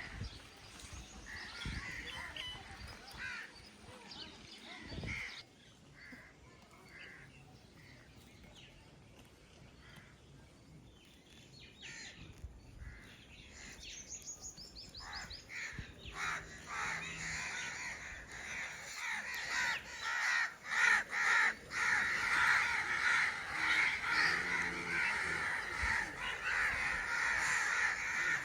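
Many birds calling at once in dense, overlapping chatter, sparse at first and building up to a loud, continuous din about halfway through.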